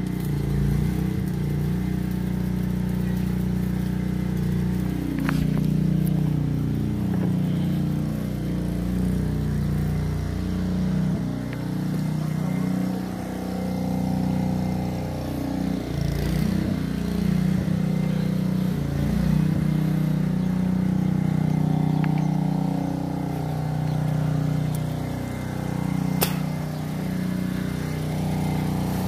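An engine running steadily, its pitch wavering a little now and then.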